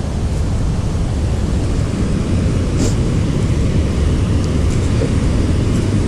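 Steady rushing roar of a waterfall and its river, a dense low rumble that holds at one level.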